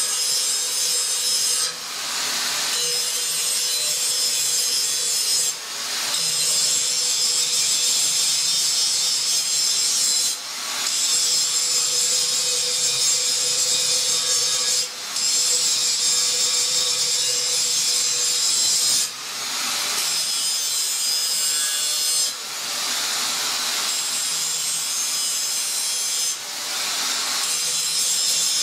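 Electric angle grinder grinding a metal block in a vise: a steady, loud hiss of the disc on metal over the motor's constant whine. The sound dips briefly about every four seconds.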